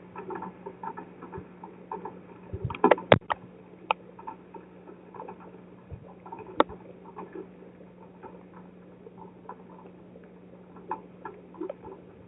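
Irregular patter of rain drops striking the driveway camera, with a cluster of sharp, louder knocks about three seconds in and one more a little past halfway. A steady low hum runs underneath.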